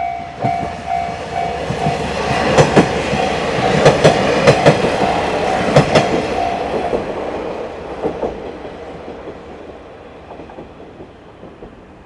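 Japanese level-crossing warning bell ringing about twice a second as a diesel train runs over the crossing, its wheels clacking sharply over the rail joints. The bell stops about seven seconds in, and the train sound fades away.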